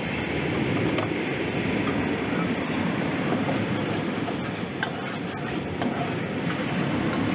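Campfire cooking: a steady low rumble under a cast-iron pot, with fine crackling and a few sharp clicks from about three seconds in.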